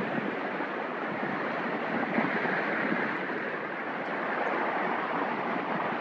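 Steady rushing wind noise on the microphone, even throughout with no distinct events.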